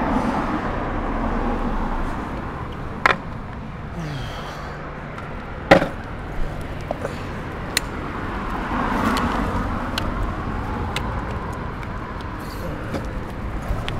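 Longboard wheels rolling over a concrete pavement, with a few sharp clacks along the way, over road traffic; cars swell past near the start and again about two-thirds through.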